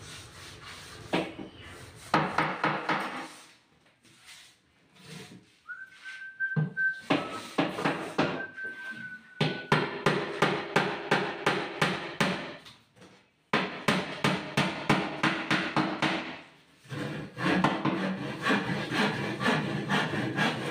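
Claw hammer driving nails through plywood, fixing glued shelves into a cabinet carcass: quick runs of knocks on the wood, stopping and starting several times. In a pause in the middle, a person whistles two held notes.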